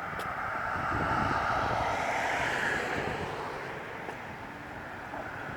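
A vehicle passing on the road, its tyre and road noise swelling about a second in and fading away.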